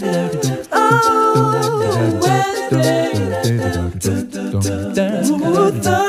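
Background music: a song with sung vocals over low bass notes and a steady beat.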